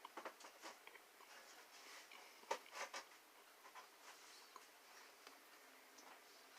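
Faint chewing and mouth sounds of a person eating pizza: scattered soft smacks and clicks, the sharpest about two and a half seconds in.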